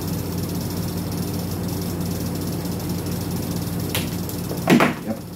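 Hand tools working on the voltage regulator's wiring to remove a burnt terminal: a click about four seconds in and a louder clack near the end, over a steady low electrical hum.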